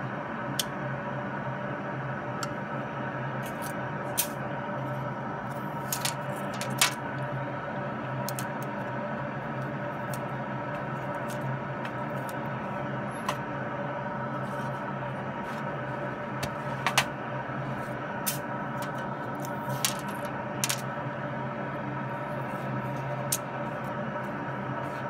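Scattered sharp clicks and snaps, irregularly spaced, as a powered probe is touched to nickel-aluminium nanofoil on a metal pan. The strongest snaps come about seven seconds in and again around seventeen seconds. Under them runs a steady hum with several held tones.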